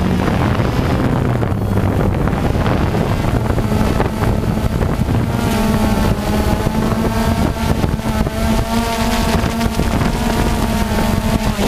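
DJI Phantom quadcopter's four electric motors and propellers buzzing in flight, heard from the camera on the drone itself, with wind rushing over the microphone. The buzz holds steady tones whose pitch shifts as the drone manoeuvres, and several higher tones come in about halfway through.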